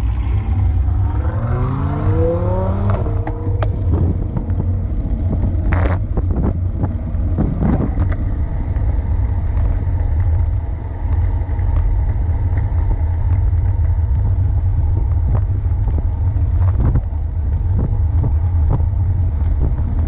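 Wind rushing over a bicycle-mounted camera's microphone on a fast road descent, with a steady low rumble from the tyres on the asphalt. A rising tone in the first three seconds, and a few sharp knocks from bumps in the road about six and eight seconds in.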